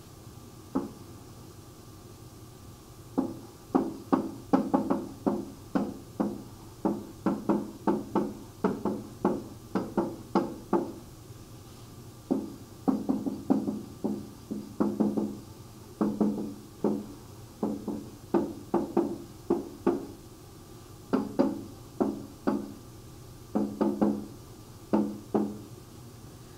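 A stylus tapping and knocking on a writing tablet during handwriting. The knocks come in quick bunches with short pauses between them, mostly from about three seconds in.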